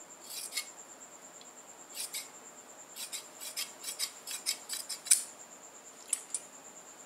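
Large tailor's shears cutting through folded embroidered fabric in a series of short, sharp snips: a few spaced snips first, then a quick run of them, the loudest about five seconds in, and two last snips near the end.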